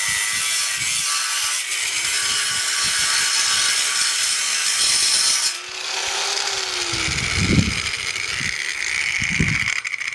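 Angle grinder with a cutting disc cutting a V notch into steel square tubing, a steady loud grinding with a high whine. About five and a half seconds in the disc comes off the metal and the grinder keeps running free, with a few low knocks.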